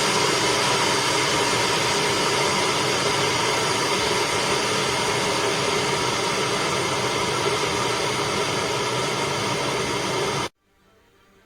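Russell Hobbs Victory compact stainless-steel electric kettle heating water to the boil, a loud steady rushing noise that cuts off abruptly near the end.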